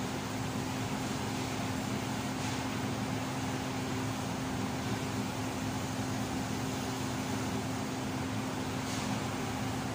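TIG welder running: a steady hiss with a constant low hum, and a faint click twice.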